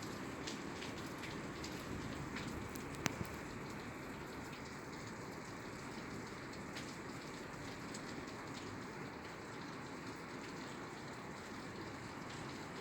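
Steady rain falling on a roof, an even hiss with scattered drops ticking, and one sharper, louder tick about three seconds in.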